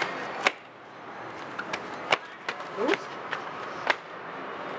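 Children playing in a paved courtyard: several sharp clacks and taps at irregular intervals over a steady background hiss, with a brief voice about three seconds in.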